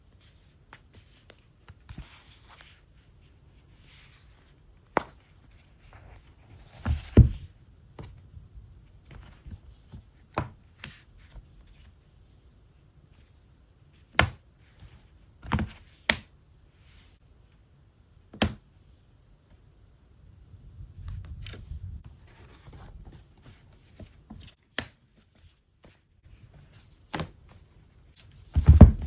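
Hands handling an iPad and its accessories on a tabletop: sparse sharp taps and clicks with a few heavier knocks, the loudest about seven seconds in, and a soft rustle a little past twenty seconds.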